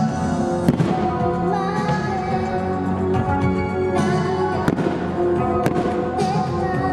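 Fireworks bursting over anime-song music: a few sharp bangs, with spells of crackle, over continuous music.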